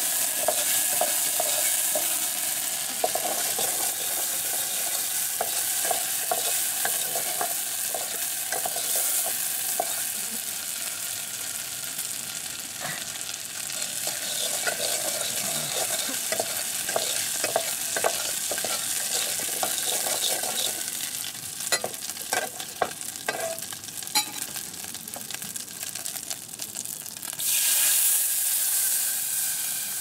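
Food sizzling and frying in a blackened pot over a wood fire, stirred with a metal ladle: a steady sizzle with many short scrapes and clinks of the ladle against the pot. Near the end a louder burst of hissing as water is poured into the hot pot.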